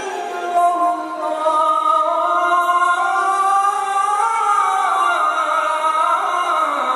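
Azan, the Islamic call to prayer: a voice chanting in long held notes that slowly rise and fall in pitch.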